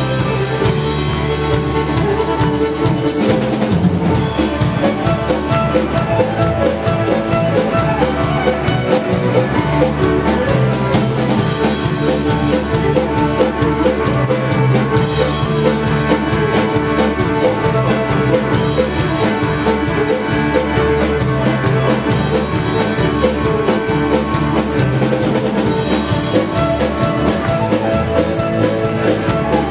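Celtic fusion band playing an instrumental passage live, with a drum kit keeping a steady beat under the melody instruments.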